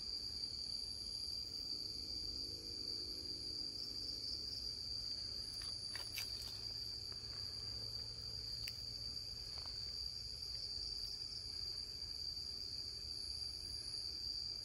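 Steady, high-pitched chorus of night insects in tropical forest, a constant shrill trill. A few brief faint clicks come about six seconds in.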